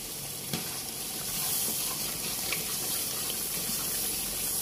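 Steady sizzling hiss of a spiced onion-masala gravy base frying in plenty of oil in a large pot over a high flame, the oil having separated from the masala.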